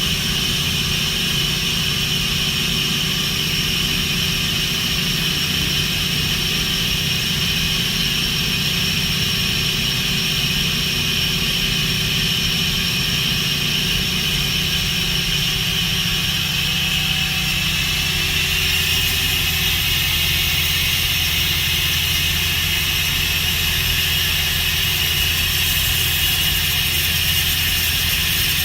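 Mori Seiki NT4300 CNC turning center running under power: a steady machine hum with a high whine on top. About two-thirds of the way through the tone shifts, the low hum dropping and the high whine brightening.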